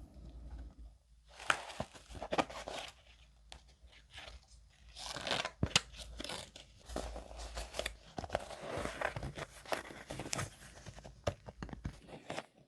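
Paper handled and crinkled in irregular bursts, rustling and crackling with a few sharp clicks.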